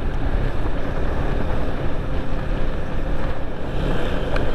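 Motorcycle ride at steady speed: wind rushing over the microphone mixed with the bike's engine running at an even pitch.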